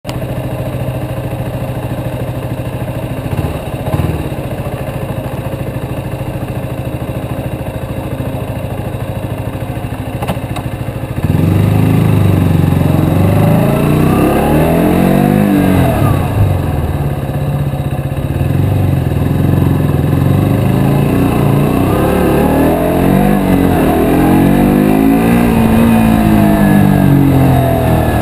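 KTM Duke 125's single-cylinder four-stroke engine idling steadily. About eleven seconds in it gets louder as the bike pulls away, and its pitch rises and falls again and again as the throttle is opened and closed at low speed.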